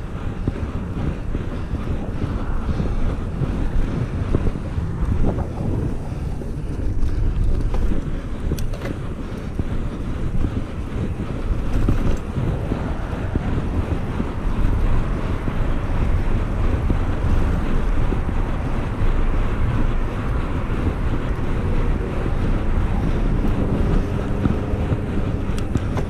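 Wind buffeting the microphone of a bicycle-mounted camera at road-riding speed: a steady low rumble of noise that swells and dips irregularly.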